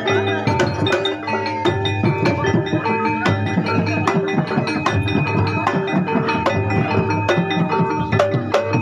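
Javanese jaranan (horse-dance) music: drums beating a busy rhythm over ringing metal-keyed percussion notes.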